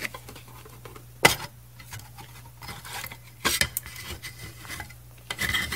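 Sheet-metal case of a Micronta SWR meter being pulled open by hand: a sharp metallic click about a second in, then light clinks and a brief scrape as the cover halves come apart.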